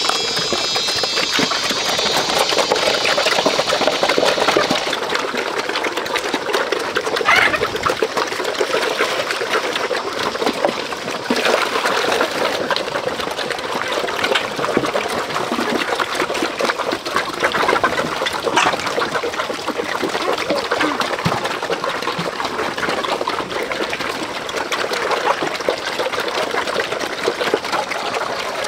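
Herd of pigs eating wet feed from troughs: dense, continuous slurping and chomping. A brief high call comes about seven seconds in.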